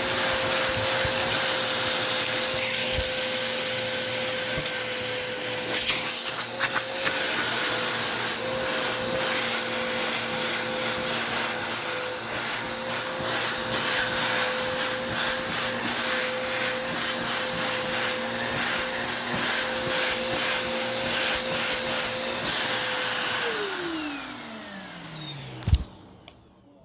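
Bissell vacuum cleaner running with a steady whine, with scattered clicks and crackles as it picks up grit. About 23 seconds in it is switched off and the motor winds down, falling in pitch, followed by a single thump.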